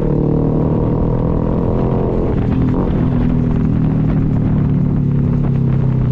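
Yamaha R15's single-cylinder engine running steadily under way, with road and wind noise.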